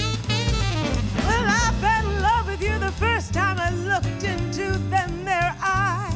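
A traditional New Orleans-style jazz band playing an instrumental break in a swing tune: a lead melody that bends and scoops in pitch over a walking bass and a steady beat.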